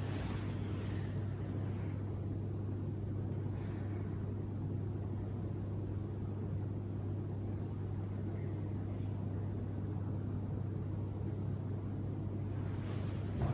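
Steady low hum, even in level throughout, with faint soft rustles of bed covers being handled.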